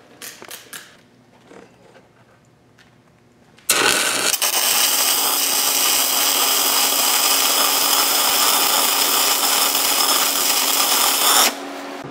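Stick-welding (SMAW) arc from a 1/8-inch E6010 electrode laying a tack weld on steel pipe: a loud, steady sizzle that strikes about four seconds in, runs about eight seconds and stops abruptly. A few faint handling clicks come before it.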